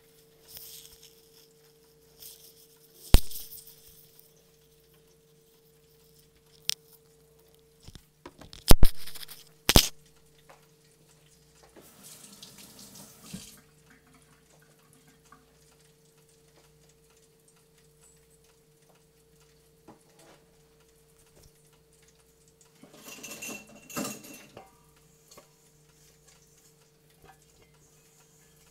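Steady low hum with a few sharp knocks, the loudest about a third of the way in, and two short bursts of splashy hiss like a tap running briefly.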